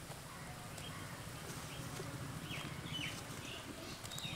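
Curry gravy boiling in a pan, a low steady rumble, with small birds calling around it in several short falling chirps.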